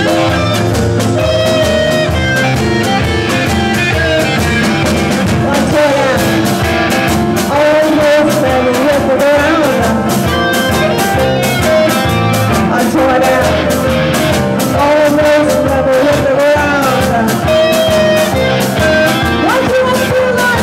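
A live blues band plays with electric guitars and a drum kit, and a woman sings lead into a microphone.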